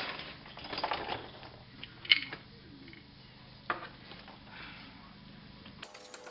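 Handling clatter of a small 2500 lb electric winch being lifted and set against a steel front mounting bracket: rustling, then one sharp metallic clink about two seconds in, the loudest sound, and a duller knock near four seconds.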